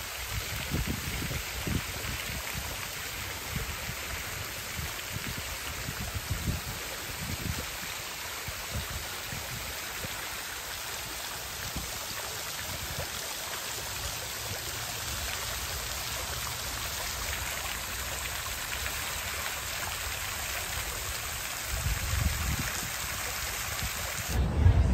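Park fountain: a tall water jet falling and splashing steadily into its stone basin. Uneven low rumbles come and go in the first several seconds and again near the end.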